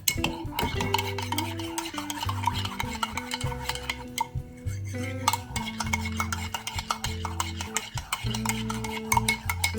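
A spoon stirring and clinking against a dish in quick repeated taps, over background music with a steady bass line.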